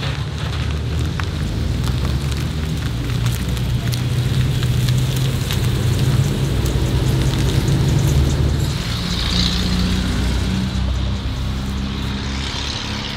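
Supercharged car engine running steadily while driving, with a low drone and road noise.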